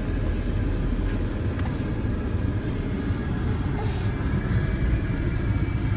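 Jeep driving along, its engine and tyre rumble steady as heard from inside the cab.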